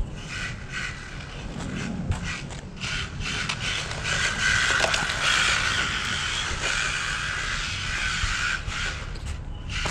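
Phantom Pro brushless RC road car driving, its 2,500 kV motor and gearing giving a steady high whine over the crackle and scrape of the tyres on the road surface. The whine grows louder about four seconds in.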